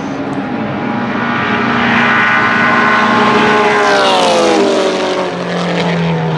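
Ferrari 250 GT SWB Berlinetta Competizione's 3.0-litre V12 racing engine at high revs, growing louder as the car approaches and passing about four seconds in, its pitch dropping as it goes by.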